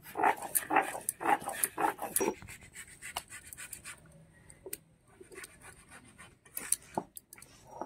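Garlic being ground with a stone roller on a flat sil grinding stone: rhythmic rasping strokes of stone on stone, about two a second, in the first couple of seconds, then softer rubbing and a few light taps.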